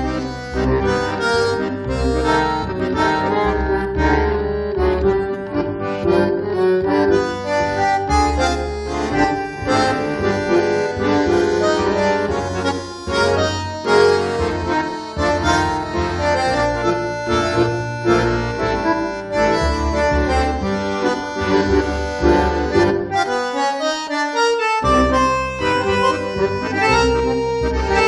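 Background music with a steady beat; the bass drops out briefly near the end.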